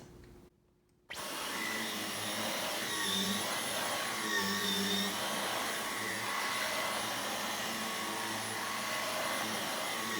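Dyson V11 Absolute cordless stick vacuum running with the mini motorized tool fitted, starting abruptly about a second in and then running steadily, its pitch shifting slightly now and then as it works.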